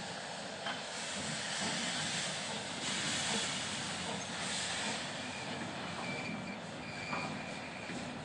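Steam locomotive on the move, with a steady rush and hiss of steam and running noise, a little louder in the first half, and a faint thin high tone, perhaps wheel squeal, around six seconds in.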